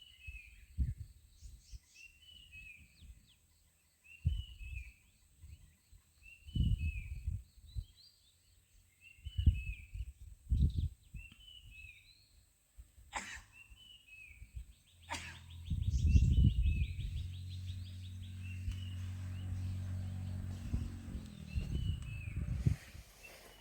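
A bird repeating a short, falling two-note chirp over and over, about every second and a half. Low thumps come and go, and a steady low hum sets in past the middle and stops shortly before the end.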